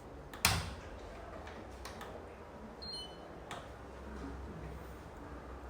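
Clicks from a washing machine's control buttons or program dial being worked: one loud sharp click about half a second in, then a few fainter ones, over a low steady hum.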